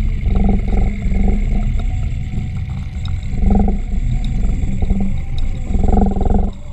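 Low underwater rumble and water movement picked up through a GoPro's waterproof housing, swelling louder several times, around half a second, three and a half and six seconds in.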